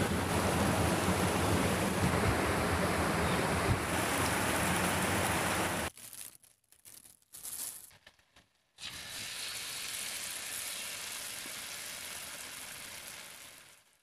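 Wind buffeting the microphone outdoors for about six seconds, then, after a near-silent gap of a few seconds, batter frying in hot oil: a steady sizzling hiss that fades out near the end.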